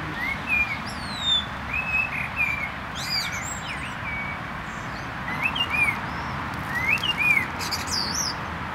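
Birds chirping: a string of short whistled chirps that rise and fall in pitch, with some higher calls, over a steady background hiss.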